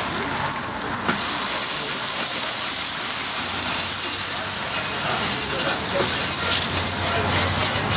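A wet three-sided grill brush scrubbing a hot Weber Q porcelain-enamelled cast-iron grill plate, the water hissing and sizzling into steam. The hiss jumps suddenly louder about a second in.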